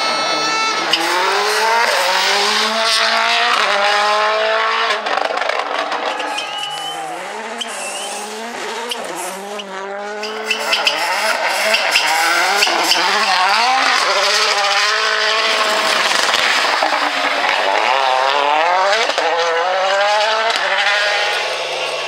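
Toyota Yaris WRC rally car's 1.6-litre turbocharged four-cylinder engine racing past, its revs climbing and dropping again and again through fast gear changes. This happens over several passes, with a quieter stretch in the middle.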